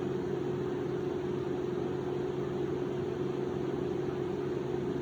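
A steady mechanical hum with one constant mid-pitched tone over a light hiss, unchanging throughout.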